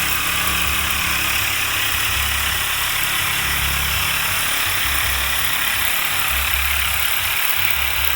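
Corded electric tin cutter (power shears) running steadily as it cuts through sheet-tin roofing along a seam: a constant motor hum under a harsh metallic hiss.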